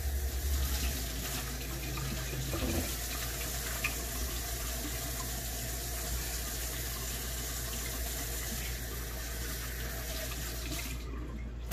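Water running steadily from a tap into a sink while hands are washed, shut off near the end.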